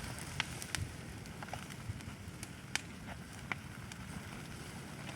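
Freshly lit wood-and-twig campfire crackling: scattered sharp pops, a few per second, over a low steady rush as the flames build.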